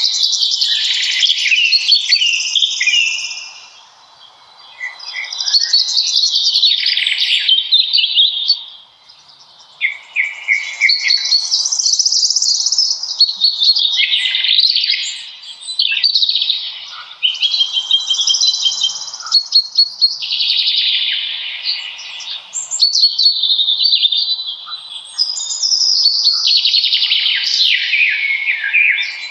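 Forest birdsong: birds singing phrase after phrase almost without pause, with short lulls about four and nine seconds in.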